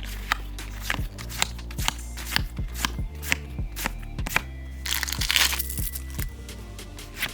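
Background music with a steady beat: a deep kick drum about twice a second over a sustained bass. About five seconds in there is a short rustling burst.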